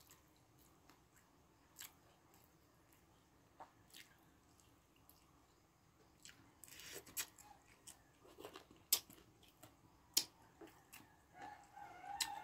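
A man chewing fried fish, faint at first, with scattered sharp clicks and smacks of the mouth that come more often in the second half.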